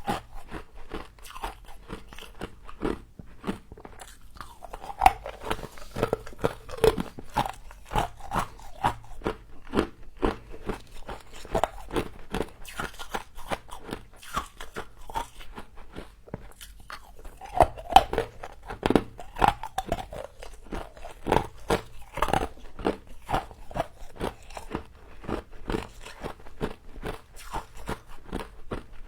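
A person biting and chewing frost, with a steady run of crisp crunches, several a second, and a few louder bites.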